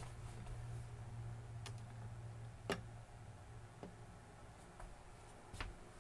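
A few faint, scattered clicks and knocks over a low steady hum, which stops about halfway through.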